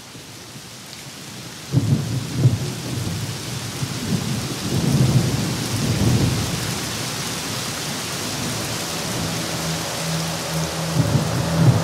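Rain pouring with rolling thunder, the thunder rumbling in about two seconds in. In the last few seconds a steady low hum comes in under the rain.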